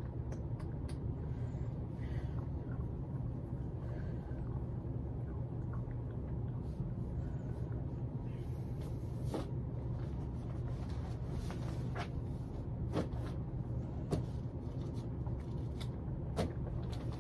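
Puppy gnawing on a marrowbone: scattered sharp clicks of teeth on bone at an uneven pace, over a steady low hum.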